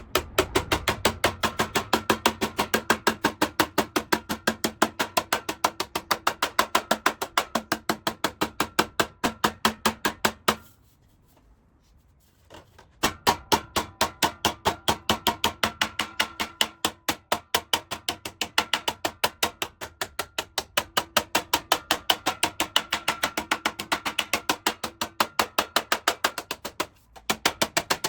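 Hammer striking the sheet-metal seat pan overhang clamped to its form, about four blows a second with a metallic ring, folding the edge over to shape the pan. The hammering stops for about two seconds near the middle and again briefly near the end.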